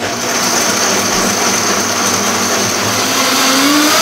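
Countertop blender switching on and running, its motor and blades churning a liquid smoothie with a steady, dense noise. The motor's tone rises in pitch near the end.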